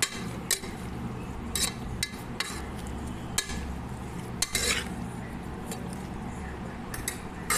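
A spoon stirring raw mutton pieces with green chillies and spices in a pressure cooker, scraping and knocking against the pot now and then.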